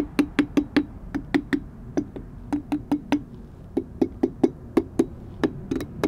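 Steel wrench tapped repeatedly on the cured Satanite refractory coating over a furnace lid's ceramic fiber lining. It makes sharp knocks, each with a brief ring, about four to five a second, in several short runs. This is a test of the coating's strength, and it holds up fairly strong with only slight cracking.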